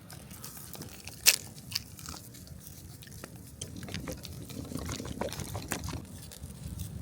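Food-prep handling noises as cube steaks and flour are readied for dredging: a sharp click a little over a second in and a smaller one soon after, then scattered ticks with soft crunchy rustling.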